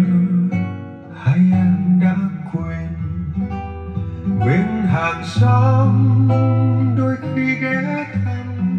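Recorded music played back on a valve hi-fi system: an instrumental passage of a slow ballad led by acoustic guitar.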